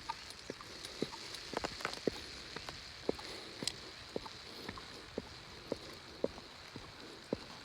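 Footsteps on a walk, short knocks at an even pace of about two a second, over a steady high hiss.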